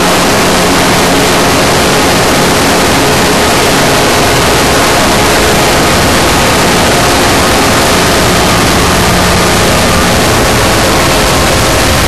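Many NHL goal horns sounding at once, layered into one steady wall of horn tones and noise that does not change level.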